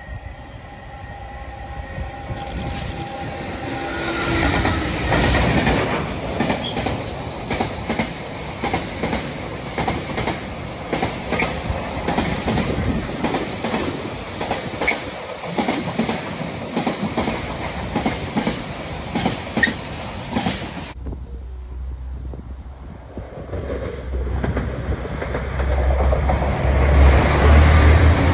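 GB Railfreight Class 66 diesel locomotive 66792, with its EMD two-stroke engine, passing at speed with a long train of loaded rail-carrying wagons: the locomotive swells to a peak about five seconds in, then the wagons follow with a long run of rapid, even wheel clicks over the rail joints. About two-thirds of the way through this cuts off suddenly, and a TransPennine Express train comes through, growing louder towards the end.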